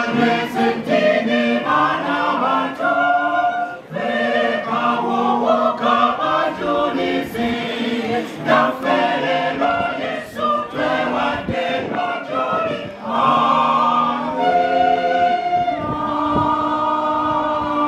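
Church choir singing a hymn, women's voices to the fore, in sung phrases with short breaths between them, ending on a long held chord near the end.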